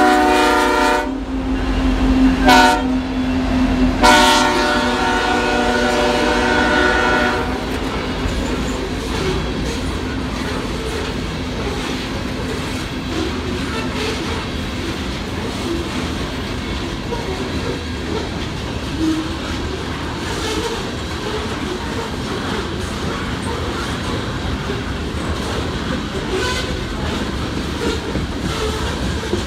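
BNSF coal train passing: the lead locomotive's air horn ends a long blast about a second in, sounds a short blast, then a long blast of about three seconds, the close of the long-long-short-long grade-crossing signal. After that the coal hopper cars roll by steadily, wheels clicking over the rail joints.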